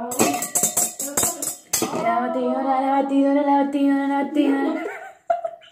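Music: quick jingling percussion like a tambourine, then a woman's voice singing one long held note.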